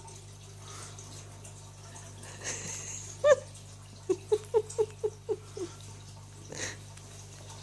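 A man's sneezing fit: a breath in, then one loud, sharp voiced sneeze about three seconds in, followed by a quick run of about seven short pitched vocal pulses, and a short breathy burst near the end.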